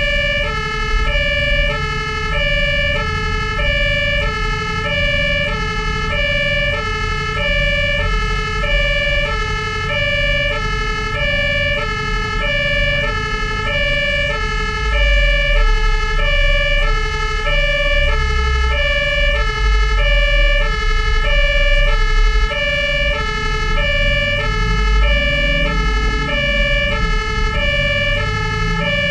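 German fire engine's two-tone siren (Martinshorn), sounding continuously and alternating between a high and a low tone about once a second each cycle. The truck's engine rumbles underneath, rising briefly near the end.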